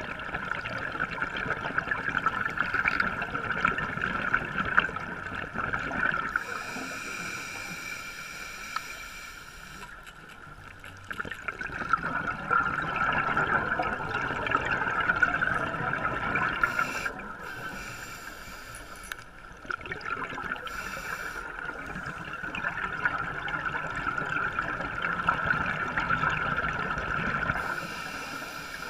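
Scuba diver's regulator breathing underwater: long crackling bubble spells as the diver exhales, three or four of them. Between the exhales come quieter gaps with a higher hiss as the diver inhales.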